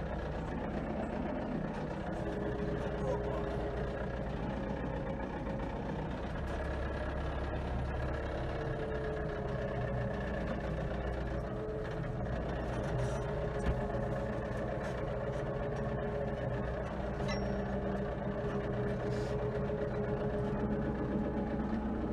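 A motor vehicle's engine running steadily as it drives, a continuous low hum with a faint steady whine above it.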